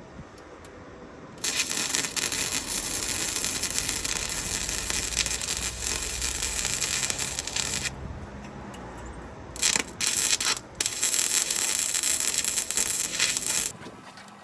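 Welding on the car body: a dense crackling hiss in three runs, a long one of about six seconds, a short burst, then another of about three seconds.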